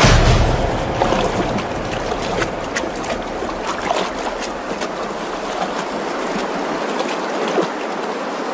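Shallow stream rushing over rocks, with a louder burst of splashing right at the start and many small splashes and drips throughout.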